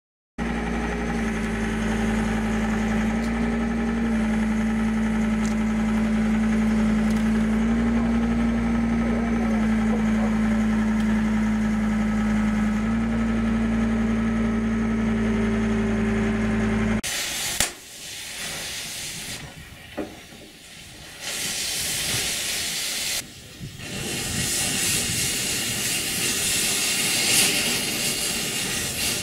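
A loader's engine running steadily, its hum stepping slightly up and down in pitch. About 17 seconds in it gives way to the loud hiss of an oxy-fuel cutting torch burning through metal, broken by a few short dips.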